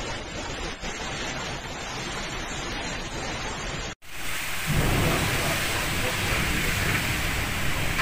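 Hurricane wind and heavy rain making a steady rushing noise. About four seconds in it breaks off for an instant, then returns louder and fuller, with a deeper low rumble under the rush of wind-driven rain.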